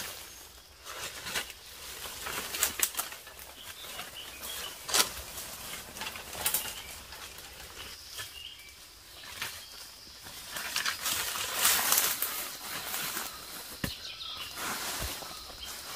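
Dry leaf litter and bamboo undergrowth rustling and crackling as a person moves through on foot, with footsteps and sharp snaps of twigs. A steady high-pitched insect call starts about halfway through.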